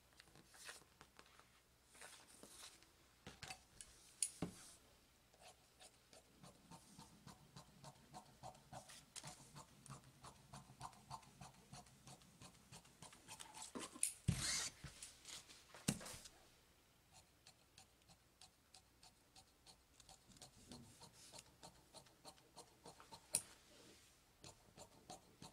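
Faint run of fabric shears snipping through cotton cloth along a paper pattern, with the blades closing in short, regular strokes. About midway there are a few louder knocks and rustling.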